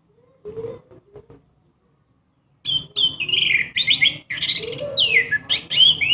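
Orange-headed thrush (anis merah) singing: a few soft notes, a pause of about a second, then from about two and a half seconds in a loud, rapid run of varied whistled phrases and trills.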